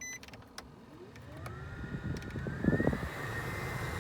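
Newly installed HVAC blower motor in a 2009 Nissan Frontier spinning up on test: a whine rises in pitch over about two seconds, then holds steady over the rush of air. It opens with a short electronic beep and a few clicks.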